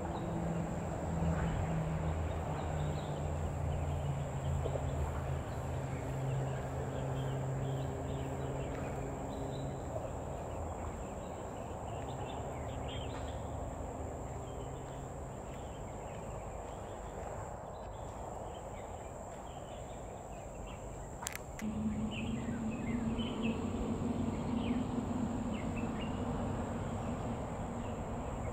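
Outdoor ambience: a steady high-pitched insect drone, a low engine hum that wavers in pitch, and faint scattered bird chirps. A sharp click comes about three-quarters of the way through, after which the low hum is louder and steadier.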